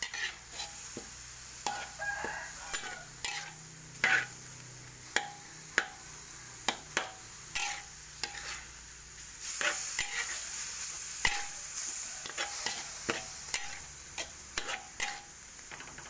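Metal spatula scraping and clacking against a wok in irregular strikes, each with a short ring from the wok, over a light sizzle as minced frog meat is stir-fried in a little water and oil.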